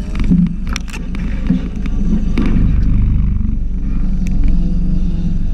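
Suzuki Grand Vitara's engine idling steadily, with a few sharp clicks and knocks over it.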